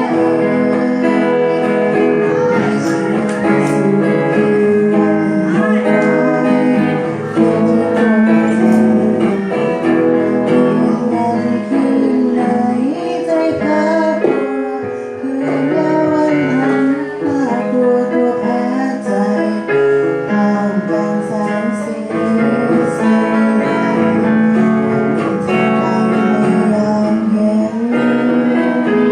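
A song with a singing voice over acoustic guitar accompaniment.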